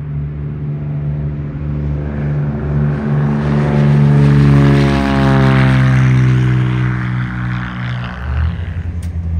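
Small single-engine propeller airplane taking off at full power, its engine and propeller note growing loud as it passes and then falling in pitch as it climbs away.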